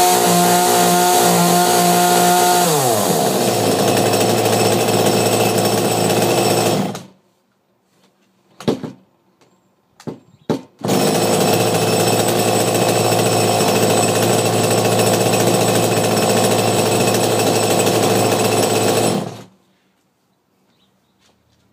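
Echo two-stroke chainsaw engine running at high revs, dropping to a lower steady speed about three seconds in, then cutting off sharply. After a few short sounds it comes back on suddenly, runs steadily, and stops abruptly near the end.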